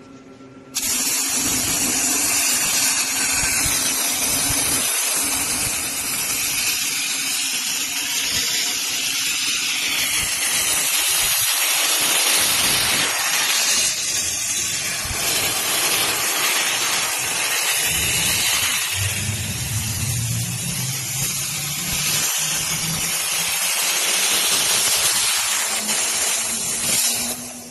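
Industrial robot machinery at work, giving a loud continuous hiss that starts abruptly about a second in and stops just before the end.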